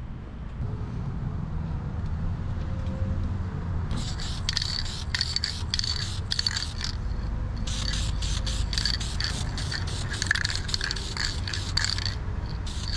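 Aerosol spray-paint can hissing in a rapid series of short bursts, starting about four seconds in, as black paint goes onto a metal strut bar bracket, over a steady low rumble.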